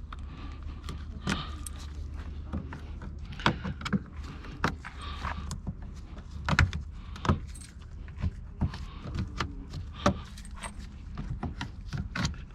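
Plastic retaining clips being popped off and handled: irregular sharp clicks, snaps and light knocks, with a steady low hum underneath.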